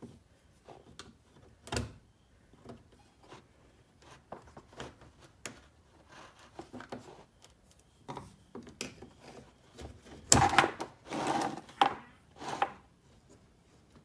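A 2010 Camaro SS's plastic front lower lip spoiler being worked free from underneath the car: scattered small clicks and knocks, then a louder burst of plastic scraping and clattering about ten seconds in as the lip comes off and lands on the concrete floor.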